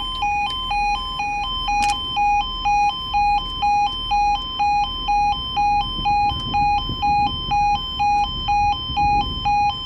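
Level crossing warning alarm sounding a steady two-tone yodel, switching back and forth between a lower and a higher pitch about twice a second while the crossing is closed for an approaching train. The alarm is in day mode, at its full daytime volume rather than the quieter night setting. There is a single sharp click about two seconds in.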